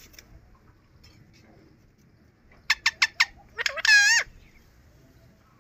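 Young Alexandrine parakeet calling: a quick run of four short, sharp calls and then one longer call that wavers in pitch, a little past halfway.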